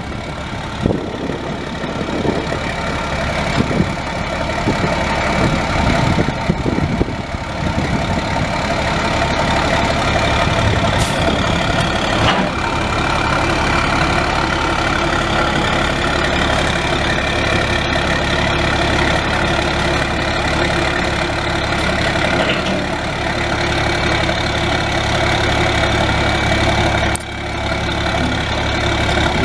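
International DT466 7.6-litre inline-six turbo diesel of a dump truck idling steadily, uneven for the first few seconds and then settling.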